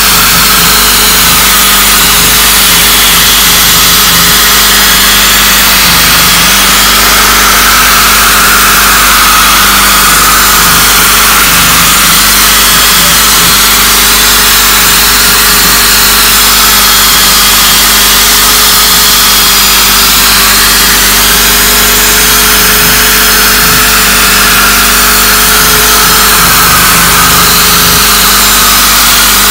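Electric drill spinning a P800 sanding disc on a backing pad against a wet plastic headlight lens: a loud, steady motor whine whose pitch slowly wavers up and down as the pad is pressed and moved across the lens.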